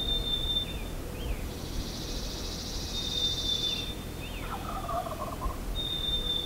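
A wild turkey gobbles once, a rapid rattling call lasting about a second, about four and a half seconds in. Around it a songbird repeats a high held whistle followed by quick down-slurred notes, and a buzzy high trill runs for a couple of seconds, over a steady low background noise.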